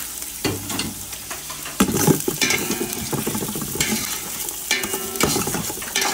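Chopped garlic, onion and ginger sizzling in hot oil in a large metal pot while a metal ladle stirs and scrapes against the pot bottom, clinking and scraping several times.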